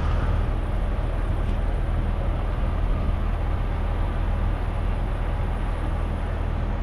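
A vehicle engine idling steadily, a low, even running sound with no change in speed.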